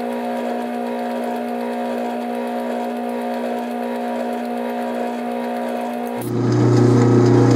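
Atlas metal lathe running steadily, its motor and drive giving a hum with several steady tones during a light drilling cut. About six seconds in the sound turns louder, with a deeper hum added.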